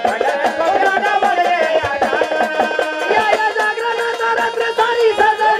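Gondhal devotional folk music: a fast, steady drum beat under a wavering melody line.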